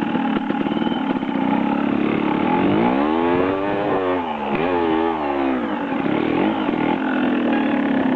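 A small engine passing in a flyby, running steadily, then swinging up and down in pitch twice in the middle before settling back to a steady drone.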